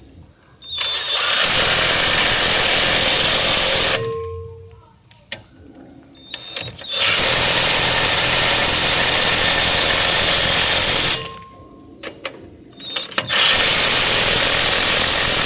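Mailtank 21-volt cordless impact wrench hammering on a rusted jeep wheel nut in three long bursts of about three to four seconds each, with short pauses and a few faint clicks between.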